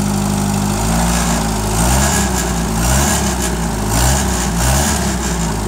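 1974 Satoh Elk tractor engine running soaking wet, just after it started on choke. From about a second in, its speed rises and falls several times.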